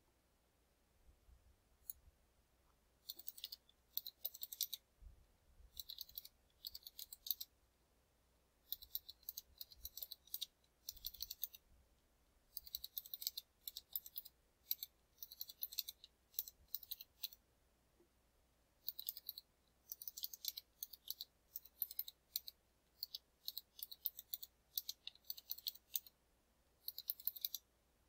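Computer keyboard typing in quick runs of keystrokes with short pauses between, as numbers are keyed into spreadsheet cells.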